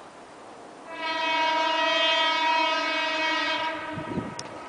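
JR Kyushu 813 series electric train sounding its horn: one long steady blast of about three seconds, starting about a second in and stopping near the end.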